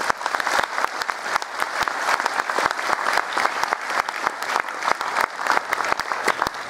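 Audience applauding, a dense patter of many hands clapping, with one person's claps close by standing out sharply.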